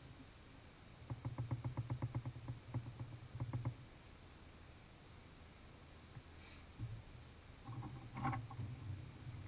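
Single-turbo Toyota 1JZ straight-six being cranked on the starter in two attempts: a rapid, even chugging of about eight beats a second lasting a couple of seconds, then after a pause a shorter, rougher burst with a sharp crack in it near the end.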